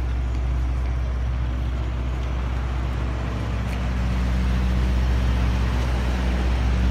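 Parked Mister Softee ice cream truck running, a steady low hum with an even hiss over it.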